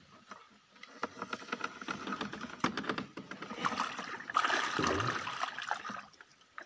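Water splashing and trickling at a net fish trap, a patter of many small drips and splashes that grows fuller about four seconds in and dies away shortly before the end.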